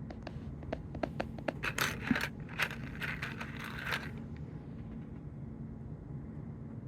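Small plastic Lego minifigure pieces clicking and clattering against each other and a hard surface, a dozen or so sharp clicks. They overlap with a couple of seconds of rustling as the pieces and packaging are handled, around the middle.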